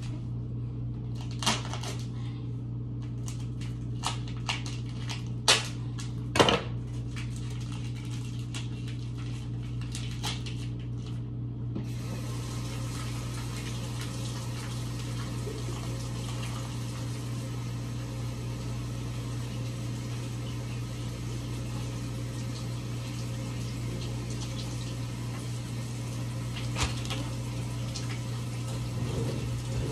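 Steady low hum of kitchen background noise, broken by a few sharp knocks and clatters of cookware and kitchen handling, the two loudest about five and six seconds in and a smaller one near the end.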